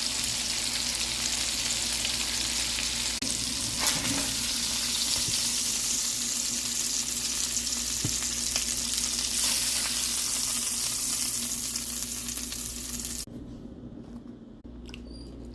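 Burgers sizzling as they fry, a steady hiss with a few light clicks over a low steady hum; the sizzle cuts off abruptly near the end.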